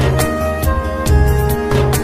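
Background music: a gentle instrumental track with a steady beat, bass notes and bell-like chimes.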